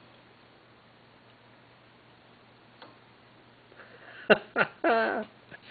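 Two sharp clicks about four seconds in, from a hand tool on the Atlas lathe's pulley set screw, over a faint steady hum, followed by a short wordless voice sound.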